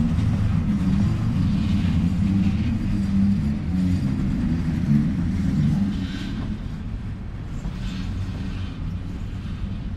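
Train rolling past behind a diesel locomotive: a steady low rumble of wheels and engine, a little quieter from about six seconds in.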